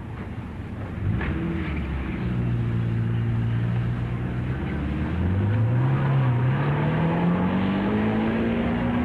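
1930s sedan engine pulling away: it runs at a steady pitch for a few seconds, then rises steadily in pitch from about halfway as the car accelerates.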